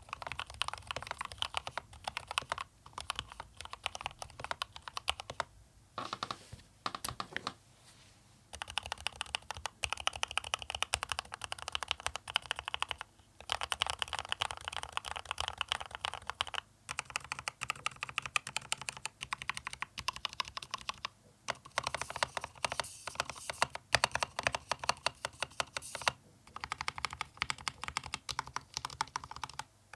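Fast typing on an Akko 3068B Plus mechanical keyboard with Akko Jelly Pink linear switches: a rapid, continuous clacking of keystrokes in runs, broken by short pauses several times.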